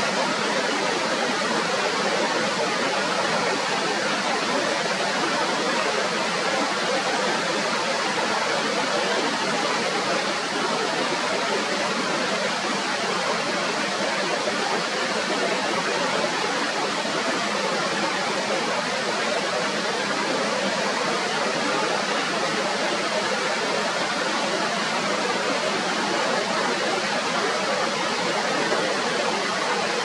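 Steady rush of white-water river rapids churning over rocks, an even hiss-like noise that holds unchanged throughout.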